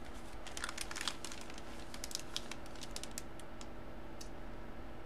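Clear plastic wrapping crinkling and crackling as it is handled, a quick irregular run of light clicks over the first three seconds or so and one more a second later, over a faint steady hum.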